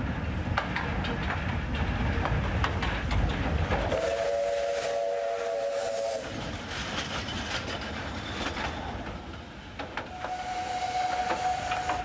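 Narrow-gauge steam train running with a rumble and clicking of wheels on rail. Its whistle sounds about four seconds in for roughly two seconds, and again as a single steady note near the end.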